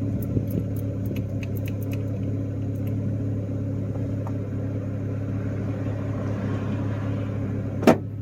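Turbocharged Honda Accord engine idling steadily, with a few light clicks in the first seconds and one sharp knock near the end.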